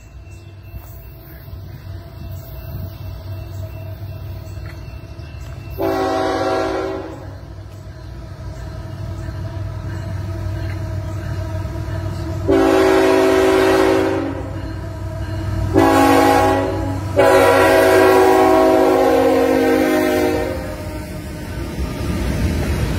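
CSX freight train's diesel locomotive sounding its air horn, a chord of several notes, in four blasts with the last held about three seconds, over the rising rumble of the approaching engine. Near the end the locomotive and covered hopper cars roll past.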